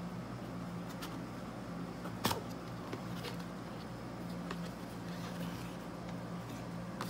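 Cardboard product box being handled and its lid flap opened: light scraping and tapping of paperboard, with one sharper knock a little over two seconds in. A steady low hum runs underneath.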